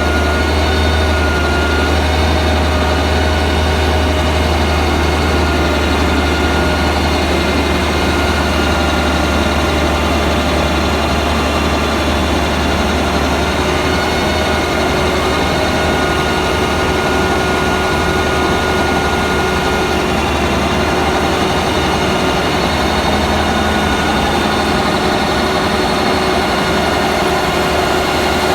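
A heavy machine running steadily for the whole stretch: a strong deep hum with several steady whining tones above it, the pitch holding constant.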